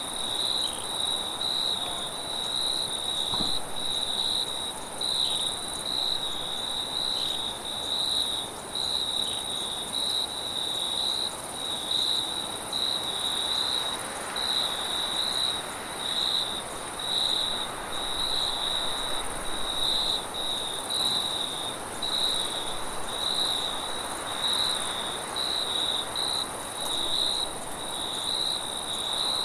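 Crickets chirping in an even, steady pulse of about one and a half chirps a second, over a continuous high insect trill. Beneath them a soft wind hiss swells and fades.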